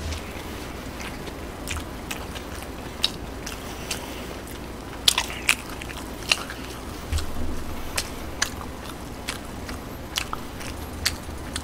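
A man chewing a mouthful of fast-food burger close to the microphone: soft, wet chewing with scattered sharp mouth clicks and smacks, a few louder ones about five to six seconds in. The fried burger is soggy rather than crisp, so there is little crunch.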